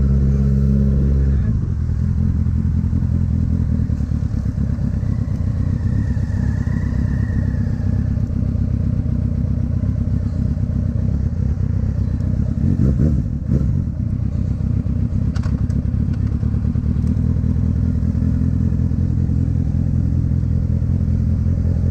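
Kawasaki Ninja ZX-6R's inline-four engine running at a steady pitch, dropping about a second and a half in to a lower, rapidly pulsing note that it then holds, with a short louder clatter a little past halfway.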